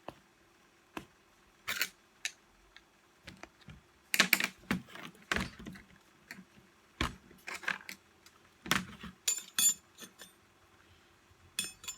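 Parts of a Skil 4900 reciprocating saw being handled and fitted together by hand during reassembly: irregular clicks, taps and small clatters of plastic and metal pieces.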